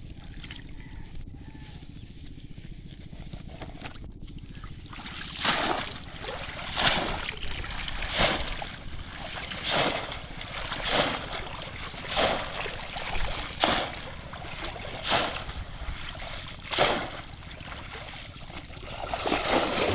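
Repeated splashing in shallow water: about ten splashes roughly a second to a second and a half apart, starting about five seconds in, over a low steady rumble.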